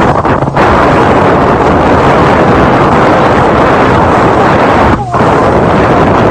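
Heavy wind buffeting the microphone of a camera on a moving inflatable chase boat at sea, a loud, near-clipping rush with brief dips about half a second in and about five seconds in. A low, steady engine hum runs underneath.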